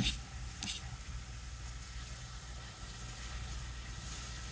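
Quiet room tone with a steady low hum, and two short soft hisses within the first second.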